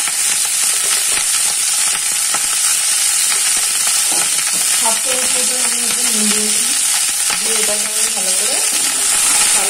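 Cauliflower florets frying in refined oil in a kadai: a steady sizzle.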